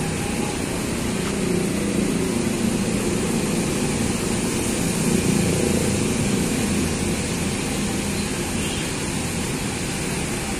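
Coach bus's diesel engine idling steadily.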